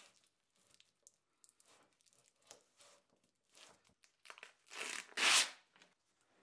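Gloved hands rubbing a prepreg carbon fibre sheet down into a mold, with faint rustling. About five seconds in comes a louder crackling rip as the plastic backing film is peeled off the prepreg.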